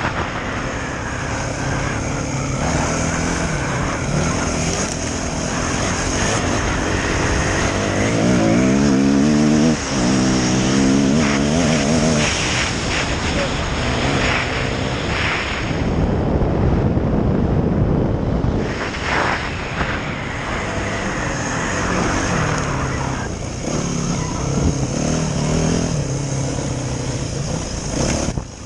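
Yamaha dirt bike engine running hard under the rider, the revs climbing sharply about eight seconds in, easing off for a couple of seconds past the middle, then pulling again.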